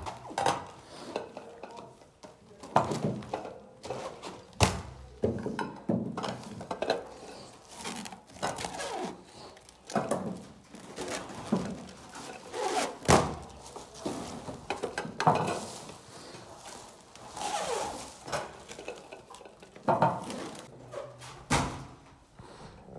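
Irregular knocks, thuds and clinks of canned drinks, plastic trays and plastic-wrapped packages being handled and set down, at uneven intervals.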